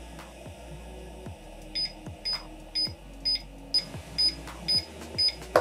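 Small electronic buzzer module in a homemade digital countdown timer beeping, short high beeps about two a second: the timer has hit zero. A single click near the end.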